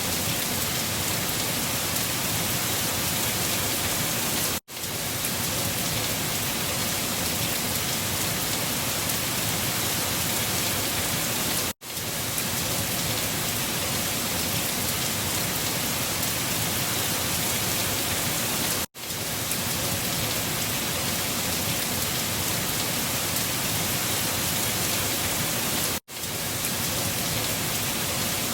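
Storm ambience: a steady, dense rushing hiss of wind and rain. It drops out for a split second four times, about every seven seconds, where the recording loops.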